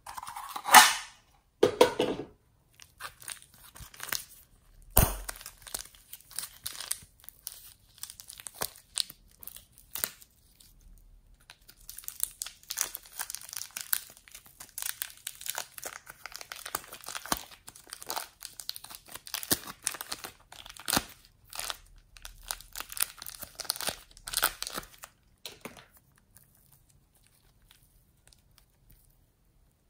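Hands working slime and soft clay: a loud sticky peel in the first two seconds, then a long run of crinkly, crackling squishes as a lump of soft clay is squeezed and kneaded. The sound stops about four seconds before the end.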